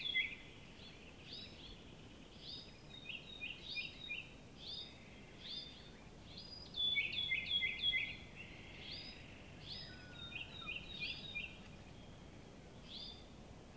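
Birds calling: runs of short chirps, each note dropping quickly in pitch, repeated through the whole stretch, with a louder run about seven seconds in.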